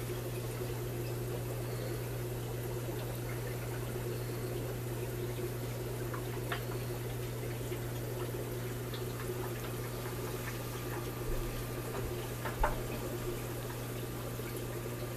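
Aquarium filter running: a steady low hum with water trickling and splashing into the tank, and a light knock near the end.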